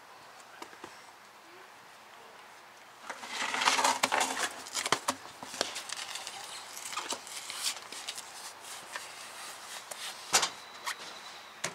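A truck wheel and tire being stood up, rolled across the pavement and hung on the hub studs: scuffing and clatter that start about three seconds in, with a sharp knock near the end.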